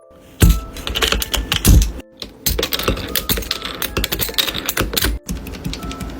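Typing on a mechanical keyboard fitted with keycaps: rapid, dense clacking keystrokes, broken off briefly about two seconds in and again about five seconds in, over background music.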